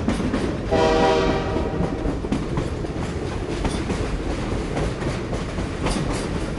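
A train running on the rails with a steady rumble, and a short blast of its horn about a second in.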